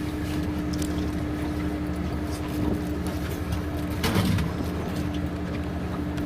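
Hired electric boat's motor running with a steady hum and an even tone, over water and wind noise. A brief thump about four seconds in.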